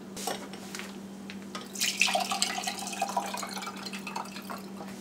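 Sorrel drink poured from a glass jar through a small mesh strainer into a wine glass: liquid trickling and splashing into the glass, starting about two seconds in and easing off near the end.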